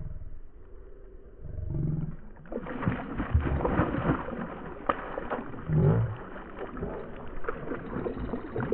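Hooked barramundi (Asian sea bass) thrashing and jumping at the water's surface while on the line: a run of irregular splashes that starts about two and a half seconds in and keeps going.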